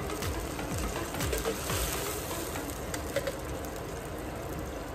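Pork simmering and sizzling in a wok as canned coconut milk is poured in, with a few light clicks.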